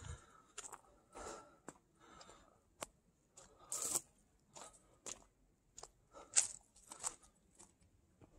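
Footsteps crunching on gravel and dry leaves, a faint, uneven series of crunches at walking pace.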